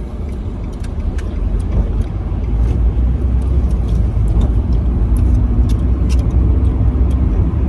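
Car in motion heard from inside the cabin: a steady low engine and road rumble that grows louder over the first couple of seconds, then holds.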